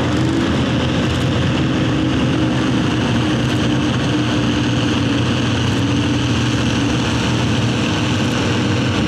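Orange Allis-Chalmers farm tractor's engine running hard and steady under full load as it pulls a weight-transfer sled, its pitch sagging slightly midway through the pull.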